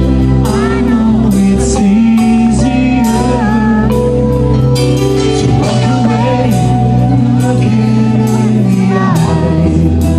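Live rock band playing: a lead vocal line over sustained chords, bass and drums, with regular cymbal hits.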